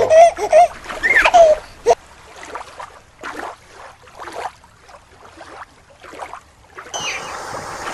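Water swishing and splashing in short, irregular bursts, turning into a steady rush of running water near the end. A few short pitched sounds come in the first two seconds.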